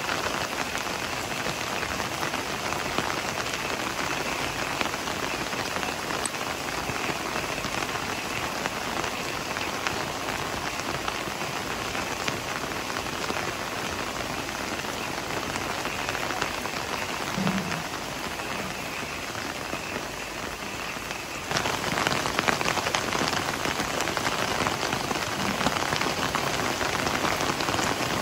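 Heavy rain falling steadily on leafy garden foliage, a dense even hiss of drops. About three-quarters of the way through, it suddenly grows louder.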